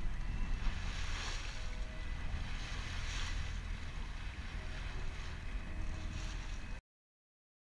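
Wind buffeting the microphone on the bow of a moving boat, a steady low rumble over the rush of the sea. It cuts off abruptly to silence near the end.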